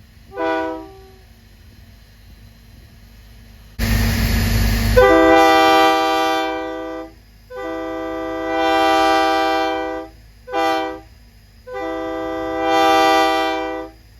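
Multi-chime locomotive air horn sounding a chord in a series of blasts: a short toot, then a burst of rushing air about four seconds in, then three long blasts with a short toot between the second and third.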